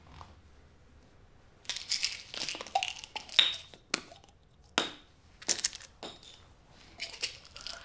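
Irregular sharp crackling and crinkling of something small being broken open in the hands, starting about two seconds in. Near the end it is bitten into and chewed.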